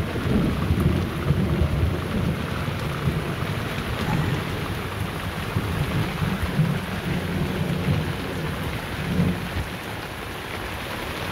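Heavy rain pouring down, with a low rumbling underneath that eases off about ten seconds in.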